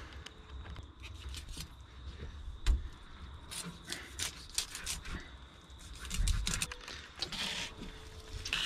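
Knife work and handling of a skipjack tuna on a wooden cutting board: short scrapes and clicks of the blade and gloved hands on fish and board, with a knock a little under three seconds in.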